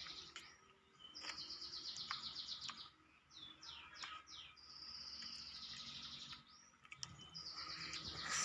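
A songbird singing: three fast, high trills, each about a second and a half long, with a few quick downward-sliding notes between them.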